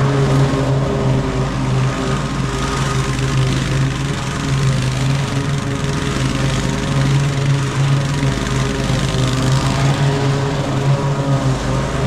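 Walk-behind gas lawn mower engine running at a steady speed while mowing grass.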